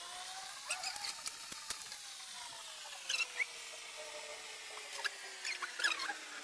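A small paint roller squeaking in short high-pitched bursts as it is rolled back and forth over a wooden board. A faint, steady tone slowly rises and then falls in pitch underneath.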